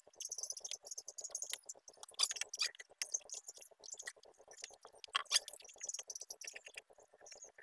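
Pencil scratching on a wooden board in quick, dry strokes, with a steel ruler set down and slid on the wood, making a few sharper clicks about two and five seconds in.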